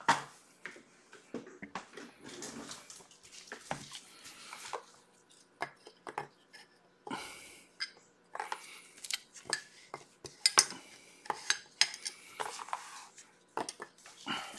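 Irregular light clicks and clatter of hard plastic, with short bursts of rustling, as clear acrylic card stands and plastic card holders are handled and set down on a table around a wrapped trading-card box.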